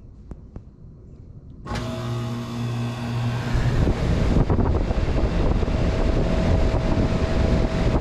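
Comfort-Aire and Goodman central air conditioner condensing units starting up together: a couple of faint clicks, then a sudden loud humming start about two seconds in. From about three and a half seconds a loud steady rush of fan air joins the hum as they run.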